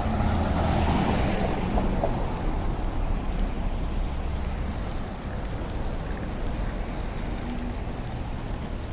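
City street traffic noise: a steady low rumble, louder over the first two to three seconds as a vehicle passes close.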